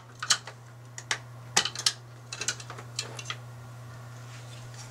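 Sharp plastic clicks and rattles of SATA cable connectors being pulled from the drives and the cables handled, several coming in quick pairs in the first three seconds, over a steady low hum.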